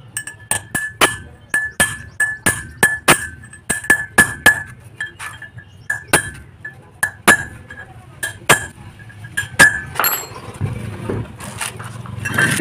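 A hammer strikes a steel drift to drive a new wheel-bearing race into a Tata Sumo Victa brake disc hub. It is a long series of sharp metallic clinks with a ringing note, often one to three blows a second. The blows stop about ten seconds in, and scraping and handling noise follows as the hub is moved.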